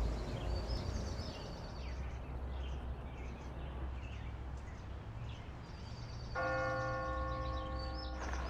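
Birds chirping over a steady low outdoor rumble. About six seconds in, a bell strikes once and rings with several steady tones.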